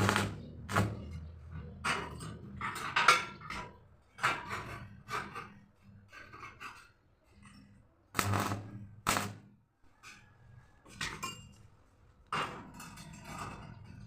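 Steel pieces of a window shutter being handled and knocked together: irregular metal clanks and knocks, some ringing briefly, with quiet gaps between them.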